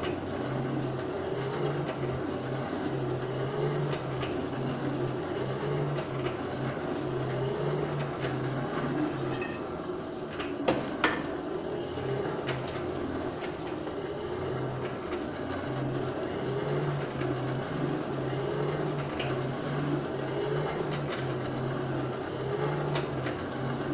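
Forge air blower running with a steady hum while the pipe heats in the fire, with a couple of light metallic clinks about eleven seconds in.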